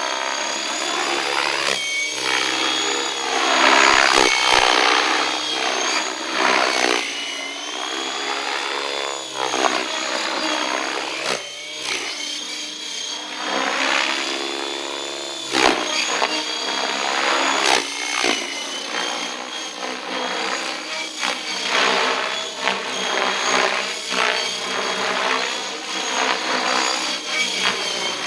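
Electric radio-controlled helicopter (Miniature Aircraft ION-X with an Actro brushless motor on 14S) in hard aerobatic flight: a high motor-and-rotor whine whose pitch and loudness rise and fall over and over as it maneuvers, loudest about four seconds in.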